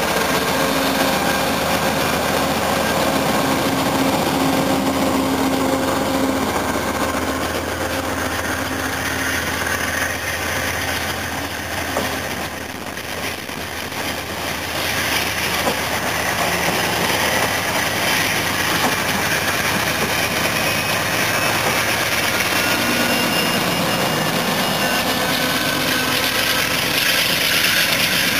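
Amtrak GE Genesis P42DC diesel-electric locomotive passing close by with its diesel engine running steadily, followed by the passenger cars' wheels rolling over the rails. A faint high whine comes in during the second half.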